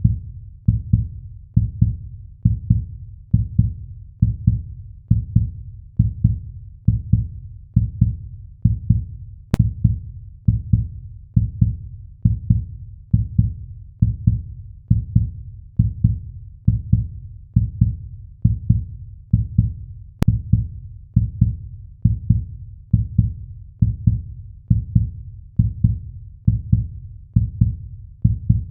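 Heartbeat sound effect: a steady, even train of low double thumps (lub-dub), a little over one beat a second.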